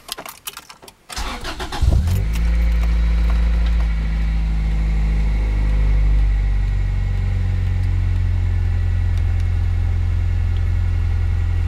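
1997 Acura Integra's 1.8-litre four-cylinder engine starting: a few clicks, then the engine catches about two seconds in and settles into a steady idle.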